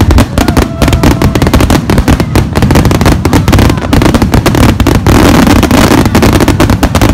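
Fireworks display: a rapid barrage of bangs and crackling from shells bursting overhead, thickening into a dense, continuous crackle about five seconds in.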